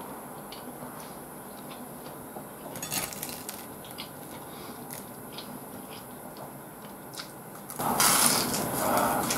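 A few light clicks of chopsticks against a plate, then, about eight seconds in, loud crunching as a breaded jumbo fried shrimp is bitten into and chewed.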